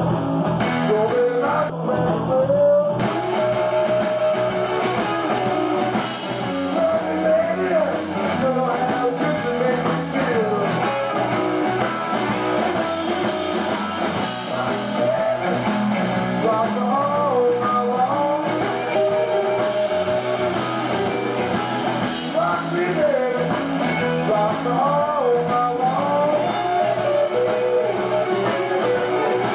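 Blues band playing, with a guitar taking lead lines full of bent notes over the band's steady accompaniment.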